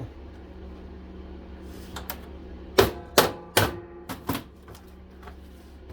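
Sharp knocks and clatter of plastic and metal parts of a central vacuum unit being handled during teardown, about six in a row from two to four and a half seconds in, some ringing briefly. A wood stove blower hums steadily underneath.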